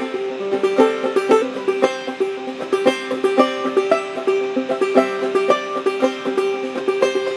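Banjo played clawhammer (frailing) style: a steady rhythm of plucked notes, with one high note sounding again and again among the melody notes.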